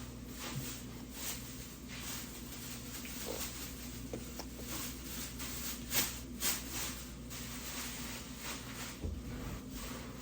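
Scattered small clicks and light taps, with two sharper clicks about six seconds in, over a faint steady low hum.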